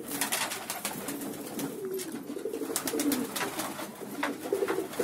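A flock of domestic pigeons cooing together in a low, warbling chorus, with many quick sharp flutters of wings among them.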